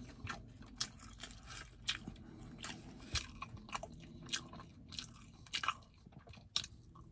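Close-miked chewing of fatty, crispy-skinned meat, with open-mouthed smacking and crunching: short wet clicks and crunches at irregular intervals.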